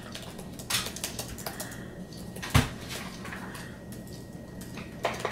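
Computer keyboard keys pressed slowly, a few scattered clicks, with one louder thump about halfway through.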